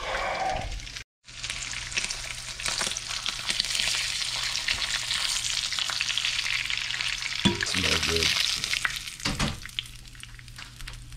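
A grouper cheek sizzling in a skillet of melted butter and vegetable oil, a steady crackling hiss with a few clicks and scrapes of a spatula against the pan. The sizzle starts about a second in and eases off near the end.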